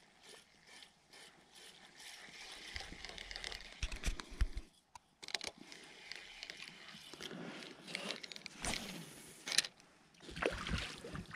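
Ultralight spinning reel being cranked to retrieve a lure, its mechanism turning with a fine clicking texture, with a couple of sharp knocks toward the end.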